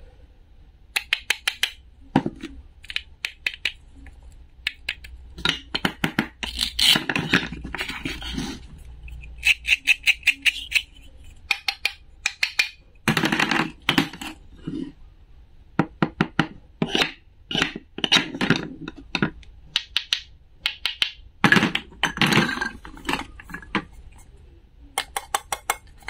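Toy play-food pieces of plastic and wood are handled and knocked together, giving runs of quick clicking taps with short pauses between them.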